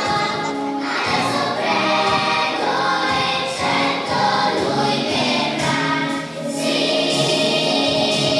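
A group of young children singing a Christmas song together with musical accompaniment, with a brief lull between phrases about six seconds in.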